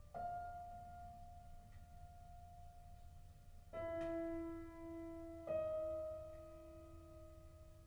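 Contemporary chamber music played quietly: three sparse notes, struck at the start, about halfway and again a couple of seconds later, each ringing on and slowly dying away.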